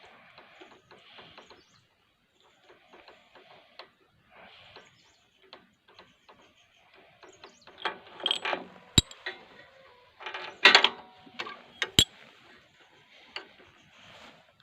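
Hand tools and metal parts clicking and rattling during a spark plug change on a power tiller engine. Faint scattered clicks in the first half give way to louder clattering about eight seconds in and again around ten to eleven seconds, with two sharp metallic clicks between.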